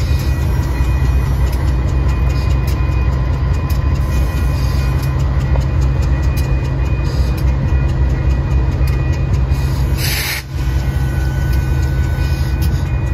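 Norfolk Southern and Union Pacific diesel-electric locomotives passing at low speed with a steady low engine rumble and light clicking from the wheels on the rails. A brief hiss sounds about ten seconds in.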